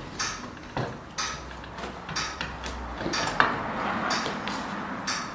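Metal parts clinking and knocking together, about ten irregular light strikes with short ringing, the sharpest about three and a half seconds in, as a motorcycle rear wheel and its spacer are handled and fitted.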